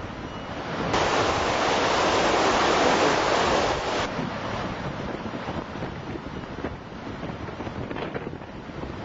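Wind buffeting the microphone outdoors by the river, with a stronger gust about a second in that lasts around three seconds and drops off suddenly.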